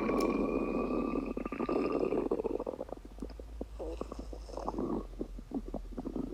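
Stomach rumbling: a long gurgle with a faint whining tone through it for the first couple of seconds, then a run of quick bubbling pops that thin out near the end.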